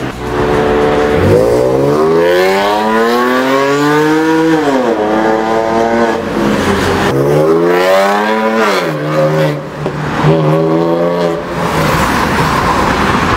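BMW Z4 with an aftermarket exhaust accelerating hard: the engine note climbs steeply, drops suddenly at an upshift about four and a half seconds in, climbs again and drops at a second shift near nine seconds, then pulls on more steadily. Near the end the engine note gives way to a rushing noise.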